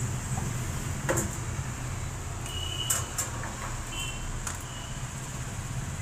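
A few light clicks and knocks of plastic and metal parts being handled inside a front-load washing machine's lower cabinet, the sharpest about a second in, over a steady low hum.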